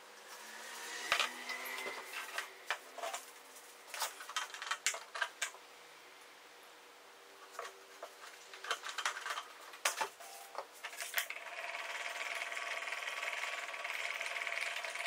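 Plastic jugs and cups clicking and knocking as they are handled on a work table. About eleven seconds in, a small electric motor starts and runs steadily with a constant whine: a powered mixing paddle stirring epoxy resin in a plastic mixing cup.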